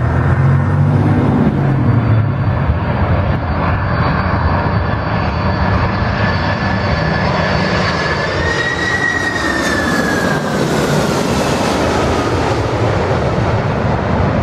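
Boeing 747-400's four jet engines on landing approach, passing low overhead with gear down. Loud, steady jet noise with a high fan whine that climbs slightly, peaks about nine seconds in, then drops in pitch as the jet goes past.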